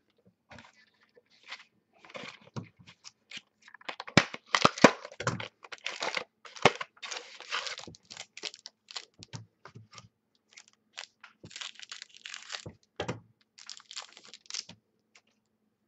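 A football trading-card pack wrapper being torn open and crinkled, with the cards handled and set down on a table. It comes as an irregular run of short crackles and clicks, loudest about four to five seconds in.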